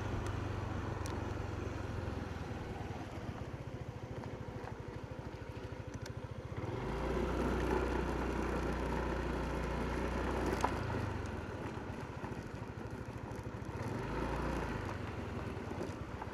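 Yamaha NMAX125 scooter's single-cylinder four-stroke engine running on the move, with road and wind noise. The engine note rises about a third of the way in, eases off, then picks up again near the end.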